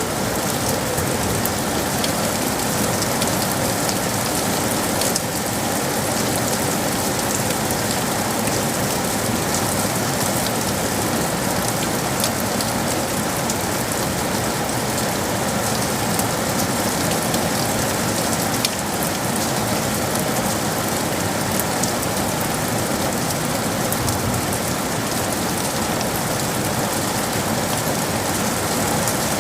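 Steady rain falling, a dense even hiss of drops with sharper individual drop ticks scattered through it.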